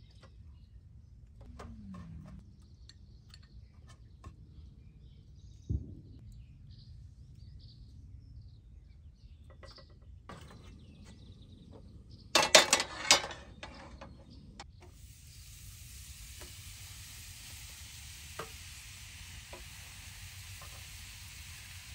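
Small clinks and scrapes of a metal spoon and pan while grilled cheese sandwiches are put together, then a short burst of loud clattering a little past halfway. After that comes a steady sizzle of the sandwiches frying in the hot pan.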